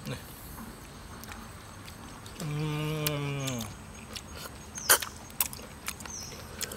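A voice hums one drawn-out, slightly falling "mmm" for about a second. Then come a few sharp clicks and a short high squeak of snails being sucked and picked out of their shells while eating, the loudest click near the middle.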